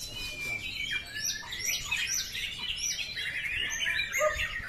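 White-rumped shama (murai batu) singing in a contest cage: a fast, unbroken run of sharp whistled notes that sweep up and down in pitch, the fierce bursts that bird-contest fans call "tembakan".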